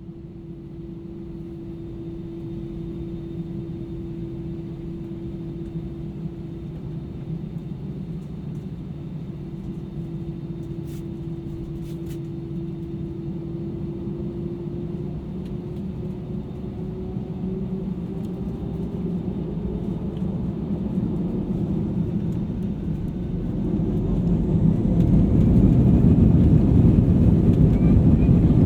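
Airbus A320-200ceo cabin from a rear seat: jet engines running with a steady hum and rumble, the hum rising slightly in pitch. The rumble grows louder, with a clear step up near the end, as the engines spool up toward takeoff thrust.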